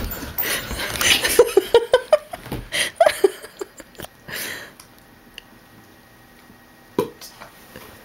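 A rapid run of short, high-pitched vocal sounds, each rising or falling in pitch, mixed with scuffling and rustling for the first few seconds. Then it goes quiet, with a single sharp knock about seven seconds in.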